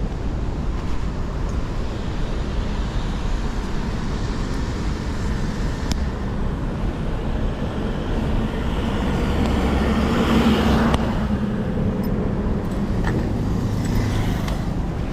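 KTM 250 Adventure's single-cylinder engine running steadily on the move, with road and wind rush. About ten seconds in, a louder rushing swell rises and fades.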